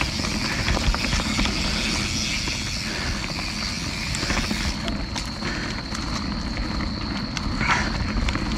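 Mountain bike riding along a dirt trail: a steady rush of tyre rumble and wind noise, with small clicks and rattles mostly in the second half.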